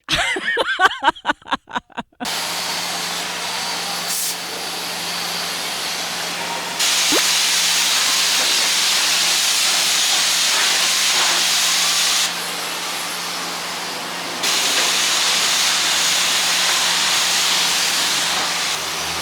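High-pressure spray wand at a self-service car wash, hissing steadily, with two louder stretches that start and stop abruptly as the trigger is worked. It opens with about two seconds of fast pulsing sound.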